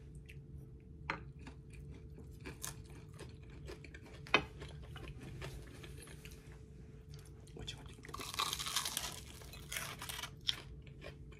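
Quiet eating: chewing and crunching of fried food, with light clicks of a fork on plates, over a steady low hum. A louder crunchy stretch comes about eight seconds in.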